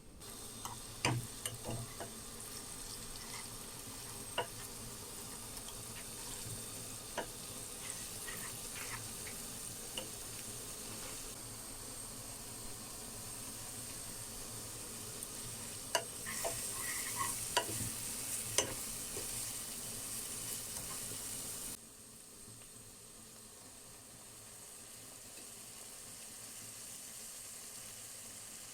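Food sizzling as it fries in a pan, with scattered clicks and scrapes of a utensil stirring it, busiest about two-thirds of the way through. The sizzle cuts off suddenly about three-quarters of the way in, leaving a quieter steady hiss.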